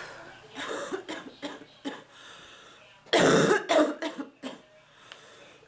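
A woman coughing in a fit: a few smaller coughs, then a loud cough about three seconds in followed by several quicker ones. An annoying, ticklish cough that is sitting in the chest and won't bring anything up.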